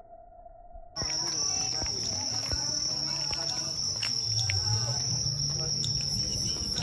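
A chorus of night insects trilling steadily at a high pitch, starting suddenly about a second in, over faint murmuring voices. Before it there is only a faint steady tone.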